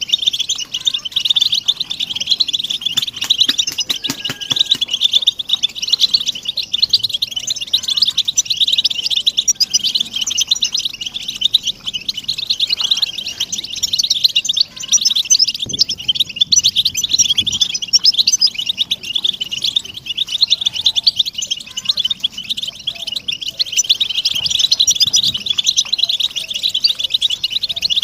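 A flock of European goldfinches chattering and twittering together: a dense, unbroken mass of many overlapping high chirps and song phrases.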